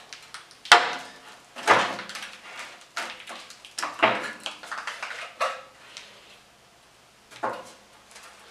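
Rusty steel Jeep CJ7 grille clanking and scraping against the body and frame as it is worked free and lifted off, with a sharp clank about a second in and irregular knocks after it.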